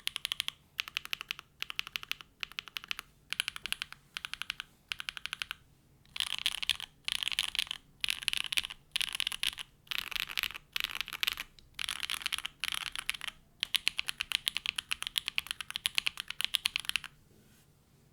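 Typing on a Neo65 mechanical keyboard with hand-lubed SWK Catmint switches, a polycarbonate plate on an O-ring mount, plate and case foam, and GMK keycaps. Quick bursts of keystrokes with short pauses between them; the bursts get louder and longer about a third of the way in, and the typing stops about a second before the end.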